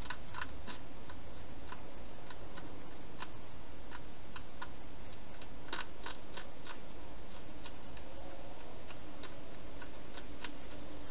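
Wild hedgehog eating from a bowl inside a plastic feeding box: irregular sharp clicks of chewing, some in quick clusters near the start and about six seconds in, over a steady hiss.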